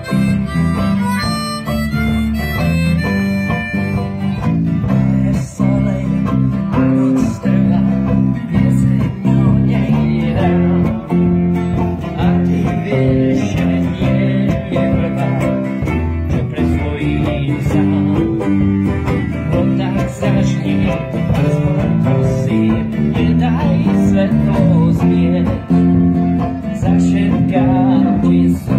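Live country band playing instrumentally: a harmonica carries the tune for the first few seconds, then banjo, acoustic guitar and bass guitar play on with a steady beat.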